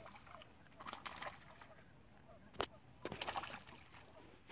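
Fish jumping and splashing in calm water, a few short splashes with the sharpest about two and a half seconds in, while cranes call in the distance.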